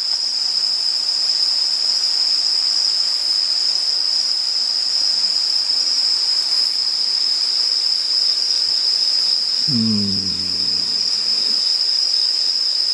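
Night insects singing in a chorus: one steady, high-pitched, unbroken trill, with a fainter song above it pulsing at an even beat. A short low hum of a man's voice comes in about ten seconds in.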